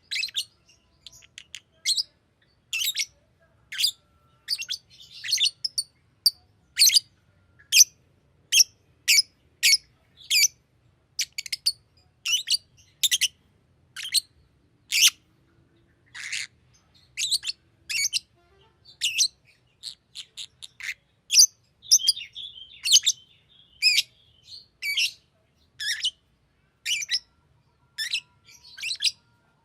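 Green lovebird giving a string of short, sharp chirps, about one to two a second, with a brief run of warbling chatter about two-thirds of the way through.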